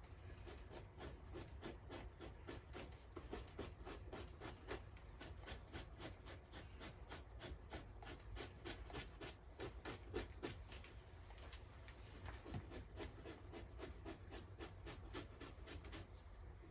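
Victorinox knife blade scraping fat and flesh off a beaver pelt: quiet, repeated short rasping strokes, about three a second, as the hide is fleshed.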